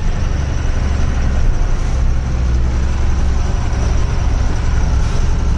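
Truck engine running with a steady low rumble, heard from inside the cab while driving on a dirt road.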